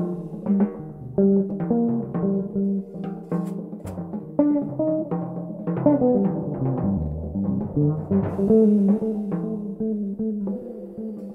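Jazz on a multi-string electric bass playing a moving line of plucked notes high on the neck, with a drum kit accompanying and a cymbal wash about eight seconds in.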